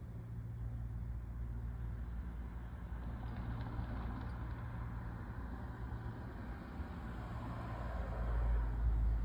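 A motor vehicle's engine running with a steady low hum, growing louder near the end.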